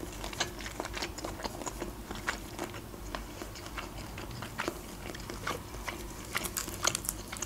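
Close-miked chewing of boiled shrimp, soft wet mouth clicks and smacks. Near the end a quick run of small crackles as a shrimp's shell is peeled apart by hand.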